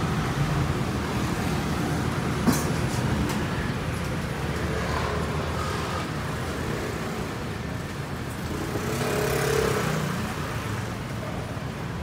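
Road traffic: a steady engine rumble that grows louder for a moment about three-quarters of the way in, as a vehicle passes close. A single sharp click sounds about two and a half seconds in.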